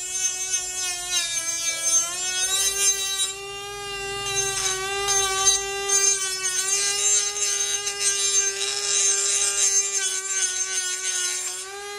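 Small DC-motor mini grinder running at speed with a steady high whine that sags a little in pitch now and then as the blade is pressed on, under a gritty hiss of the disc grinding the steel of a rusty knife.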